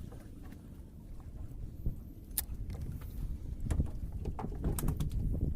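Background noise on a small fishing boat: a low, uneven rumble with scattered sharp clicks and knocks.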